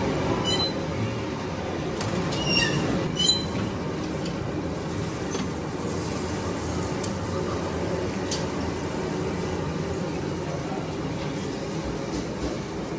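Steady roar of a commercial kitchen's extractor hood and grill, with a few short metallic clinks about two and a half to three and a half seconds in.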